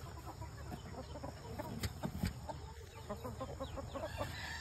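A flock of chickens clucking in many short, scattered notes, with a couple of sharp clicks about two seconds in.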